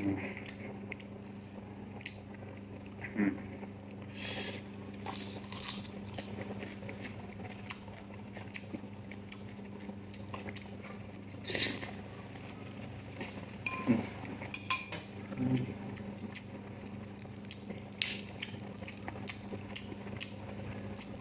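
Close-up eating sounds: a person biting and chewing balut and vegetables, with scattered sharp clicks and brief crisp crunches, the loudest about 4, 12, 14 and 18 seconds in, over a steady low hum.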